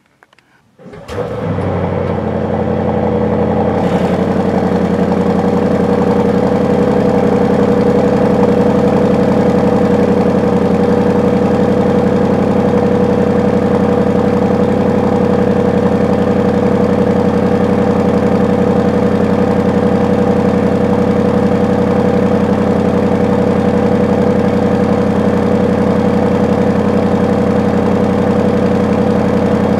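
Mercedes-AMG S63 E-Performance's 4.0-litre twin-turbo V8 starting about a second in, then idling steadily.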